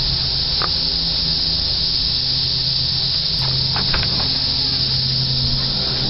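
Dense chorus of periodical cicadas: a steady, loud, high-pitched buzz that does not let up.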